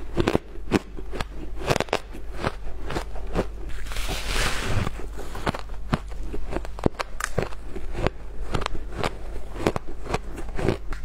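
Compacted shaved ice being bitten and chewed close to the microphone: a rapid run of crisp crunches, about three a second, with a longer crackling crunch near the middle.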